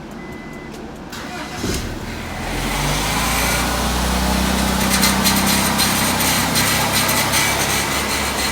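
Honda Accord's F23A1 2.3-litre four-cylinder engine being cranked and catching about two seconds in, then running steadily: the first start after a cylinder head job.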